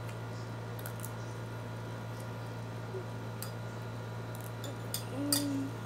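A steady low electrical hum with a few faint light clicks, and a short hummed note near the end.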